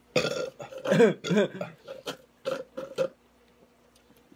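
A person burping: a long, drawn-out burp with a wavering pitch, broken into several pushes over about three seconds. A sharp click sounds right at the end.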